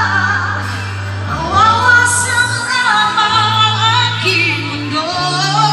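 Pop music with a woman singing a sustained, gliding melody over held bass notes.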